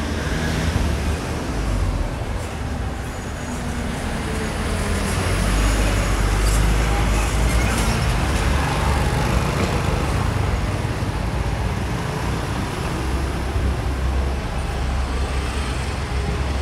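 Street traffic with a delivery truck's engine passing close by, loudest around the middle and then easing off.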